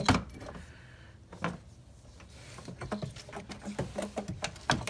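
Knocks, clicks and rubbing as a polished air-intake tube and cone air filter are worked off the throttle body and lifted out of the engine bay. There is a loud knock at the start, another about a second and a half in, a quick run of clicks in the second half, and a loud knock just before the end.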